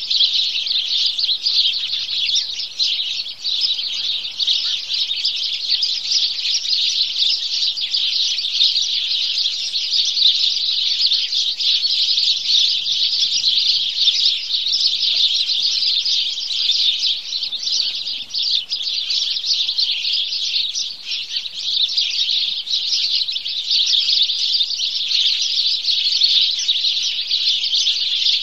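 A flock of sparrows chirping without a break, many calls overlapping into a dense, steady chatter.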